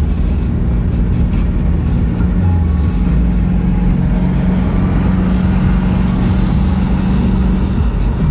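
A car's engine and road noise, heard from inside the cabin while driving: a steady low drone.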